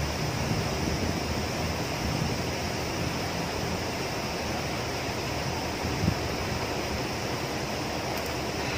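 Muddy river rushing steadily over rocks, with one brief low knock about six seconds in.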